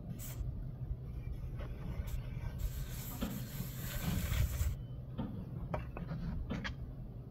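A hand float rubbing along the edge of a coated foam panel: a hissing scrape lasting about two seconds, starting about two and a half seconds in, then a few short scrapes and taps. A steady low rumble runs underneath.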